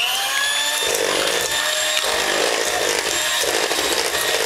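Handheld electric mixer running at a steady pitch, its beaters working through cake batter in a stainless steel bowl.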